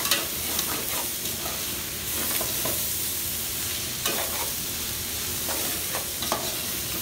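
Metal spoon stirring shredded vegetables in an aluminium pot, with irregular scrapes and clinks against the pot. A steady sizzling hiss from the hot food runs beneath.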